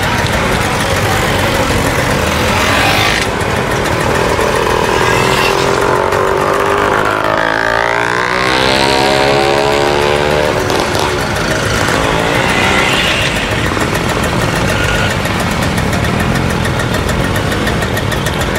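Several two-stroke vintage Vespa scooter engines running and revving loudly. About halfway through, one engine's pitch swings up and back down as it is revved.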